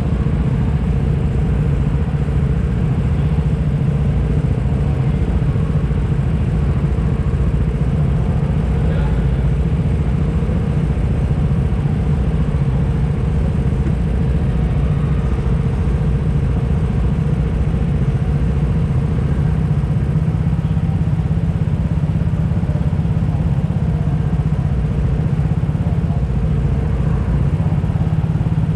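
Go-kart engines idling steadily on the grid: an even low hum that holds the same pitch throughout, with no revving.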